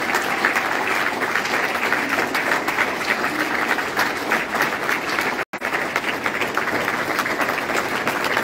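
A congregation applauding, many hands clapping at a steady level, with a momentary dropout of all sound about two-thirds of the way through.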